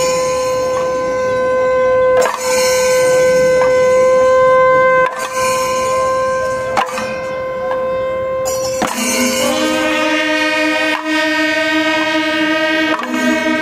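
Wind instruments hold one long steady note, broken by a few sharp strokes. About nine seconds in, it changes to several notes sounding together.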